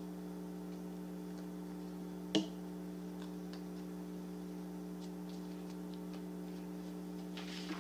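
Quiet handling of construction paper and a glue stick on a tabletop over a steady low hum, with one sharp click a little over two seconds in and a few faint ticks later.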